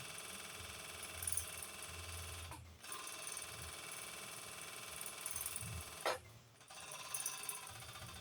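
Sewing machine motor running steadily as it winds thread onto the bobbin, a constant buzzing whine that stops briefly twice, about a third of the way in and again about three-quarters of the way in.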